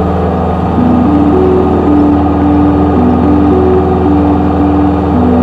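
Steady drone of a Cessna 172S's propeller and four-cylinder Lycoming engine in flight, heard inside the cabin. Soft, slow held music notes sit over it.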